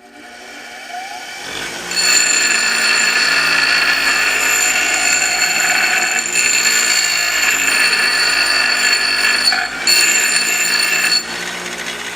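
Abrasive power tool, a chop saw or grinder, spinning up and then cutting into steel, with steady high ringing tones over the motor for about nine seconds. It breaks off briefly near ten seconds, then eases off and winds down near the end.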